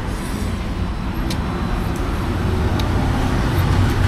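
Road traffic going by steadily, a low rumble of passing vehicles that grows slightly louder near the end, with a few short clicks over it.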